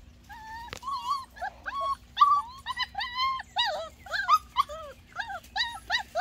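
Goldendoodle puppies whining and yipping in a rapid string of short, high calls, two or three a second.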